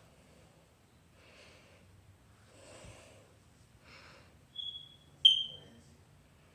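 Samsung Galaxy J3 Star phone giving two short, high-pitched beeps, the second louder and fading quickly, after a few faint breathy noises.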